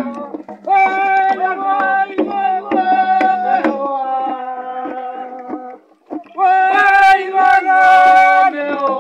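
Group chant of men's voices holding long, steady notes over a steady beat of hourglass hand drums (kundu). The singing breaks off briefly about six seconds in, then comes back louder.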